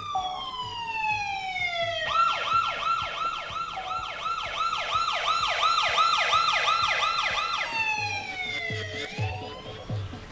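Police car siren sample played over loudspeakers. It opens with a long falling wail, switches about two seconds in to a fast yelp of repeated sweeps, about three a second, then falls and rises slowly again near the end.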